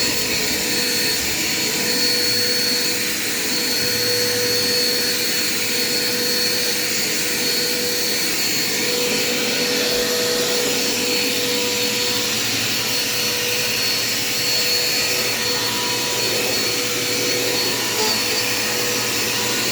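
Dirt Devil Quick Power vacuum cleaner running steadily while vacuuming, a constant motor whine over an even rush of air, on a freshly fitted drive belt.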